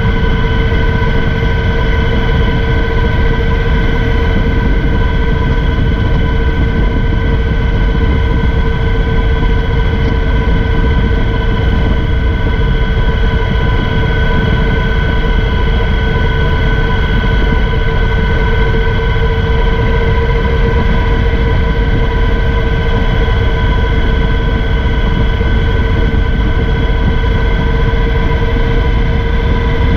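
Steady rush of wind and road noise on a camera mounted low by the front wheel of a moving Triumph Thunderbird LT cruiser motorcycle, with a steady whistle of unchanging pitch over it.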